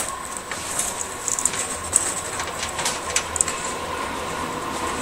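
Power supply cables and their plastic connectors rattling and clicking as they are handled, irregular short clicks, over a steady thin high tone.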